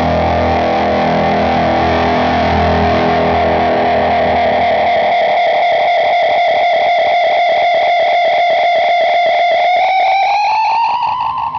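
Yamaha Pacifica electric guitar playing a distorted chord through the Gokko Mogwai overdrive/fuzz and Salem Boost, feeding the Gokko Magrane Echo Machine delay. The chord thins into fast repeating echoes of one held note. Near the end the delay's time knob is turned, and the repeats slide up in pitch, then begin to fall.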